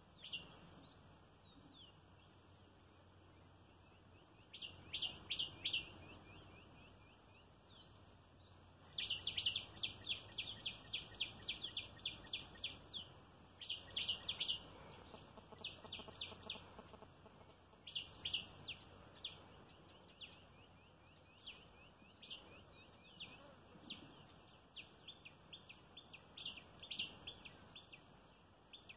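Palm squirrel giving its high-pitched chip-chip call in rapid runs of short, falling notes, pausing between runs and going on more softly near the end.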